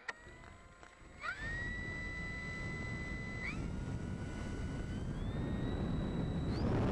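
Electric motor of an RC glider whining, its pitch stepping up several times as the throttle is opened, with a rush of propeller and wind noise that grows louder.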